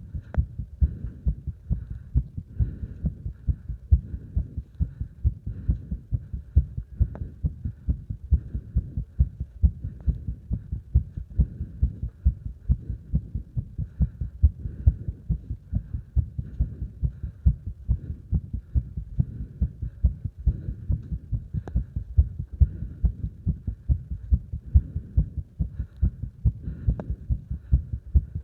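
A person's heartbeat during exercise, fast and steady, with paired thuds in quick succession. Breathing is heard faintly above it.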